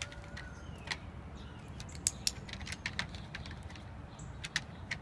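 Scattered sharp clicks and small handling noises, with a pair close together about two seconds in, over faint bird chirps.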